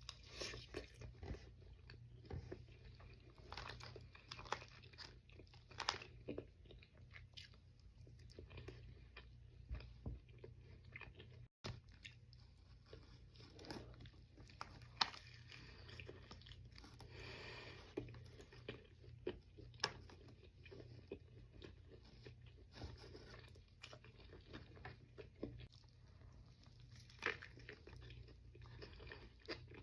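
A person chewing and biting into fast food, with frequent short, irregular crunches, over a steady low hum.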